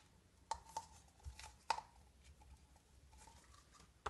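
Faint handling sounds of modelling dough being dug out of a plastic Play-Doh can by hand: a few sharp clicks and taps in the first two seconds, the loudest a little before halfway, then only faint ticks.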